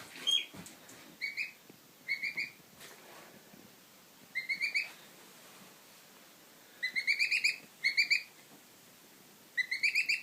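Baby goose (gosling) peeping: short bursts of quick, high peeps, several to a burst, repeated every second or two.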